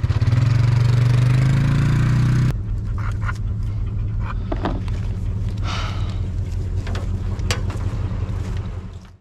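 A pickup truck's engine idling, rising slightly in pitch and then dropping sharply about two and a half seconds in to a steadier idle. A few short rattles and squeaks sit over it.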